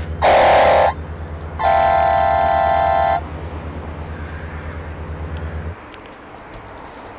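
A vehicle horn sounds twice, a short blast and then a longer, steady one, over a low, pulsing engine rumble that cuts off about six seconds in.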